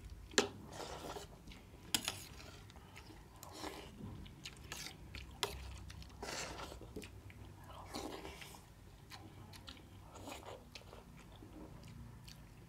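People eating rice soaked in milk: wet chewing and mouth sounds, with irregular sharp clicks of a spoon against a steel plate.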